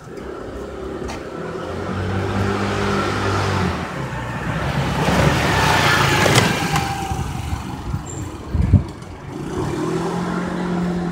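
A motor vehicle driving past: its engine hum and road noise grow to a peak about six seconds in, then fade. There is a brief thump a couple of seconds later, and an engine hum again near the end.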